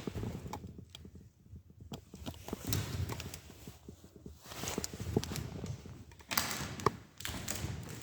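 Irregular footsteps and scuffs with small knocks, as someone walks through a room with debris underfoot, and a sharp tick near the end.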